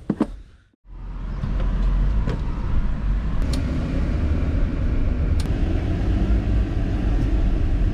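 A vehicle driving on a road: a steady low rumble of engine and road noise that starts about a second in, with a few faint ticks.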